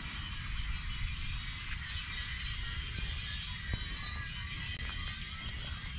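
Chorus of small birds calling from the reeds, a dense, continuous chatter that sounds almost frog-like, over a steady low rumble.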